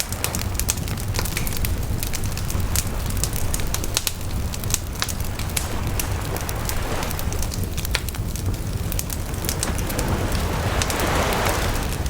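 Wood bonfire crackling, with many sharp pops over a steady low rumble. Near the end a wave washes up on the shore as a swelling rush.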